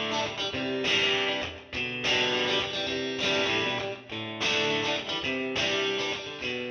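Background music played on guitar, one chord after another.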